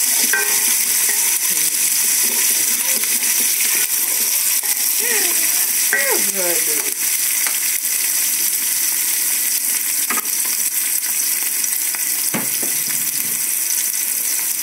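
Chopped onions sizzling steadily as they fry in oil in a stainless steel pot, cooking down toward golden brown. A wooden spoon stirs and knocks against the pot now and then.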